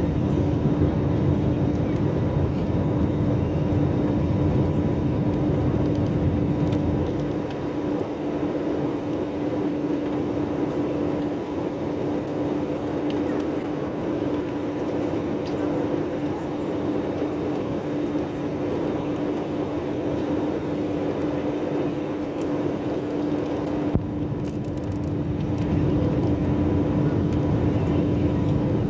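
Cabin noise of an Airbus A320neo in flight, heard from a window seat over the wing: a steady engine drone with a constant hum and rushing air. The low rumble eases about a quarter of the way in and returns near the end.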